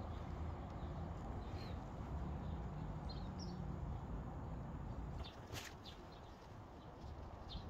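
Quiet background: a steady low hum with scattered faint bird chirps, and a single sharp click a little past halfway.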